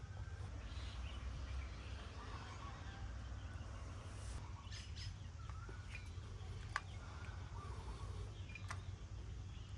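Birds chirping faintly over a steady low rumble, with two sharp clicks in the second half.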